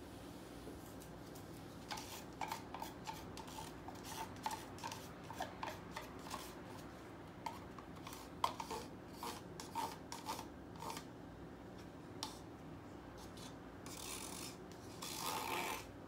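Wooden stir stick scraping and tapping against a small plastic cup as acrylic paint is scraped out into a pour cup: a run of short scrapes and clicks, then two longer scrapes near the end.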